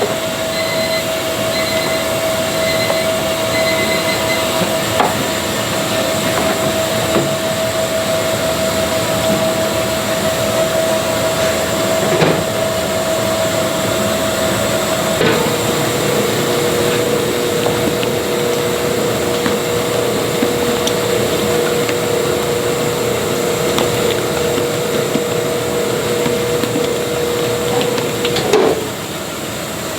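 Rice cake-making machine running steadily with a constant whine, which drops to a lower pitch about halfway through. A few faint knocks sound, and the machine noise eases slightly near the end.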